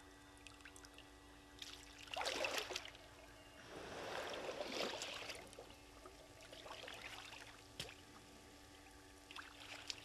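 Hippo wading out of shallow water: its legs slosh and splash in several separate bursts, the loudest about two and four seconds in, then weaker ones near seven and nine seconds.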